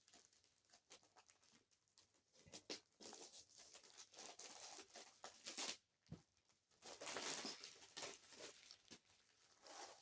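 Faint rustling and crinkling of packaging being handled and pulled open, in two stretches, with a small click in the middle.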